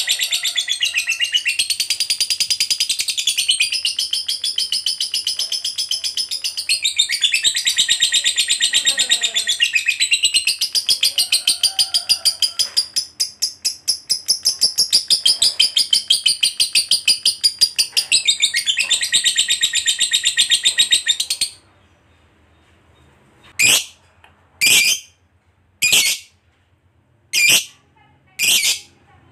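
Lovebird giving a long, unbroken chattering trill (ngekek) of rapid high-pitched notes, which stops about 21 seconds in. Five short separate calls follow, about a second apart.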